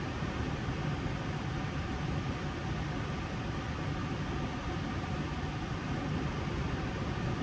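Steady hum and rush of air inside a parked Airbus A320 cockpit, from the air-conditioning and equipment fans, with no change or distinct events.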